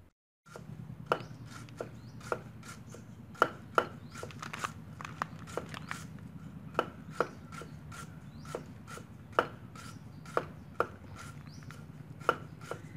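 Cleaver chopping lemongrass stalks on a round wooden chopping board: sharp knocks at an uneven pace, about one or two a second, with softer taps between them.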